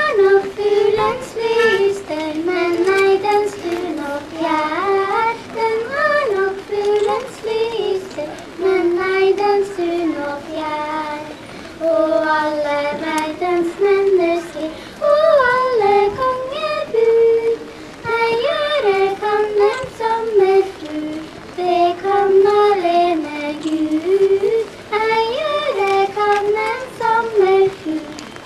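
Two young girls singing a Norwegian song together into a hand-held microphone, one melody line in steady phrases.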